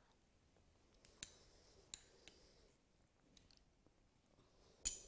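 Faint clicks of a spoon and mouth while a smoothie is tasted from a glass, a few times in the first half, then one sharp, much louder clink near the end.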